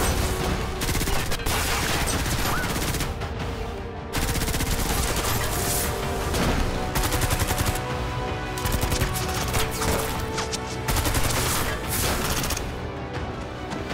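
Rapid gunfire from automatic rifles and a pistol, in several long volleys with brief lulls, over a faint bed of background music.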